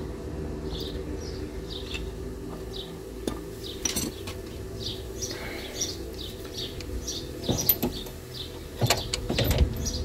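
A few sharp metal clinks from hand tools, a pair of locking grips among them, being handled on a car's front upper control arm, the loudest near the end. Birds chirp over and over in the background over a low steady hum.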